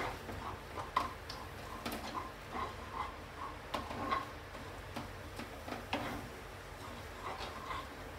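A spatula stirring and pressing a cooked apple mixture in a nonstick pan, making irregular light taps and scrapes against the pan.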